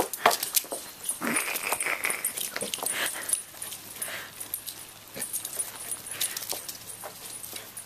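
A chocolate Labrador retriever running around a wet lawn: many quick scuffs and footfalls, with a short hissy swell about a second in.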